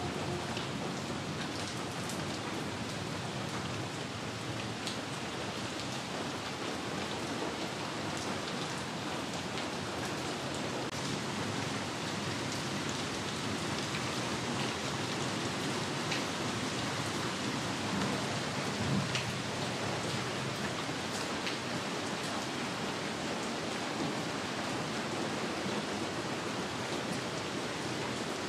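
Steady rain falling on hard surfaces, an even hiss with scattered sharp drop ticks.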